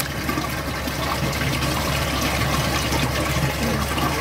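Water flowing steadily through a sediment flume over its sand bed, with a steady low hum underneath.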